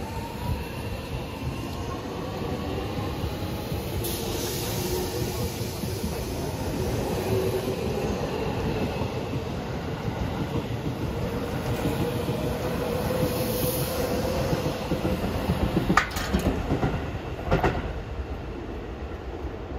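Seibu 40000 series electric train pulling out and accelerating, its motor whine rising in pitch over the steady rumble of the wheels. Two sharp clacks near the end, as wheels cross rail joints.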